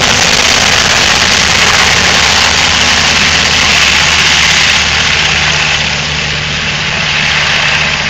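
UH-60 Black Hawk helicopter lifting off and flying away: loud, steady rotor and twin-turbine noise with a low throb underneath, easing slightly as it climbs away about five seconds in.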